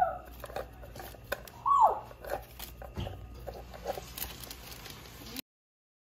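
Glass jars knocking and clicking against each other as they are handled in a plastic bag, with light rustling. About two seconds in, a short loud cry falls in pitch. The sound cuts off suddenly near the end.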